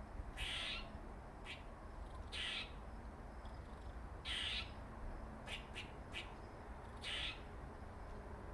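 Squirrel calling: four raspy, hissing calls about two seconds apart, with short sharp chucks in between.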